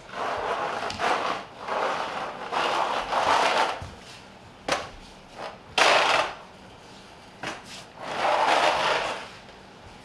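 Bare feet scuffing and sliding on a concrete floor in a run of scrapes about a second long, with a sharp click about five seconds in and a louder, shorter scrape about six seconds in.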